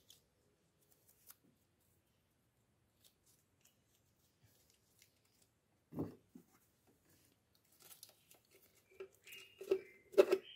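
Mostly near silence, broken by brief hand-handling noises from work around the throttle body: a single knock about six seconds in, then a few short scraping, tearing-like sounds near the end.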